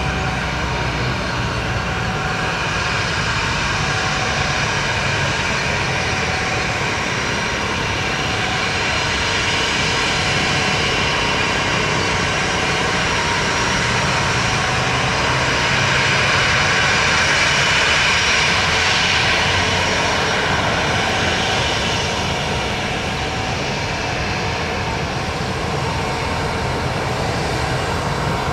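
Jet airliner's CFM56 turbofan engines running at taxi power on a Boeing 737-900ER as it turns onto the runway and lines up: a steady jet hiss and whine that swells to its loudest about two-thirds of the way through, then eases.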